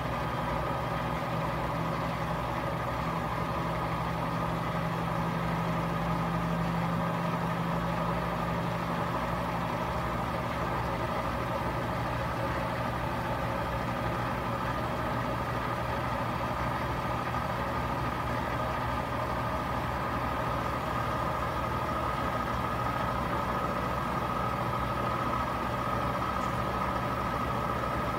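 Front-loading washing machine on its final spin cycle: a steady whine with a low hum underneath, the motor and drum running at an even speed.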